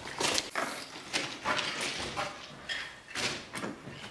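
Footsteps crunching on railway track ballast as someone walks, about two steps a second.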